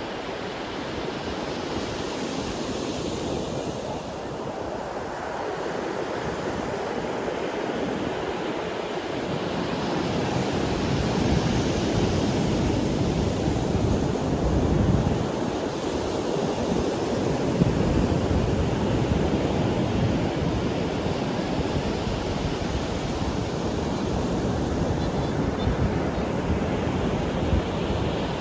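Sea waves breaking and washing on a beach, a continuous surf that swells and ebbs every few seconds, with some wind on the microphone.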